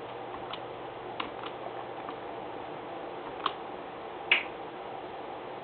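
A few short, sharp clicks over a steady low hiss, the loudest about four seconds in.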